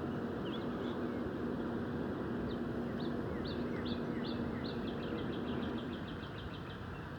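A small songbird singing a string of short high notes that speed up into a rapid trill, over a steady background rumble with a low hum that stops about six seconds in.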